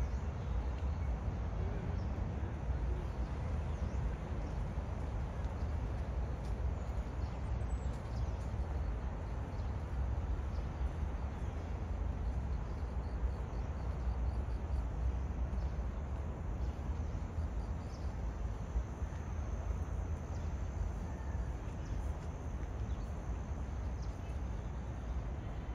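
Steady outdoor background noise with a low rumble and no distinct event standing out.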